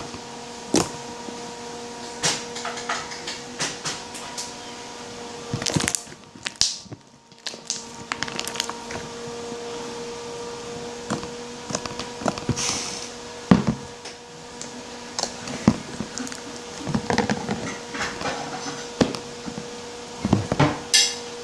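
Hands squishing, stretching and poking a slime smoothie, giving irregular sticky clicks and pops over a steady background hum.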